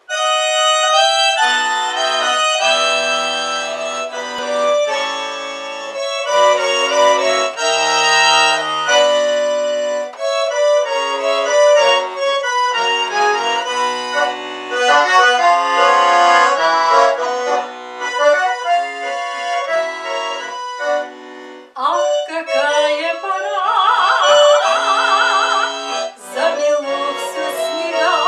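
Red button accordion (bayan) playing an instrumental introduction: a melody over sustained chords and bass notes, with a short break about three-quarters of the way through.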